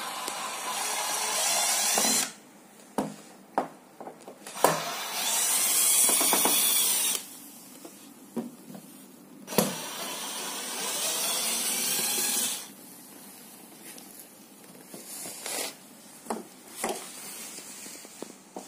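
Cordless drill/driver running in three spells of a few seconds each, backing screws out of a plastic TV back cover. Short clicks and knocks of handling fall between the runs.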